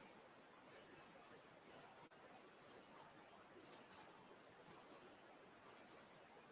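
Mobile phone's outgoing-call tone while a call is being placed: a high-pitched double beep repeating about once a second.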